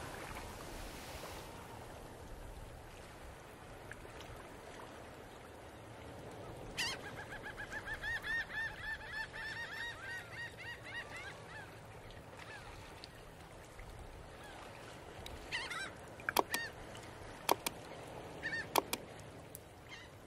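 Birds calling over a faint background hiss, with a fast run of evenly repeated calls, about three a second, from about seven to eleven seconds in. A few sharp clicks or knocks come near the end.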